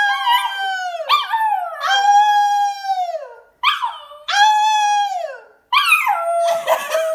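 A Pomsky puppy howling along with a woman who is howling with it: several long howls, each holding its pitch and then sliding down at the end, overlapping more raggedly near the end.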